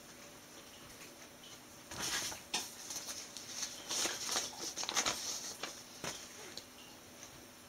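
Rustling handling noise with soft clicks, a busy flurry from about two to six seconds in.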